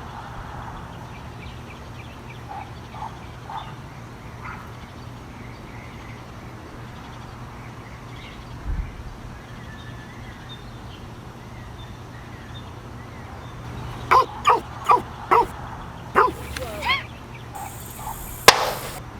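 A dog barking about six times in quick succession, over a faint, steady outdoor background. A sharp click follows near the end.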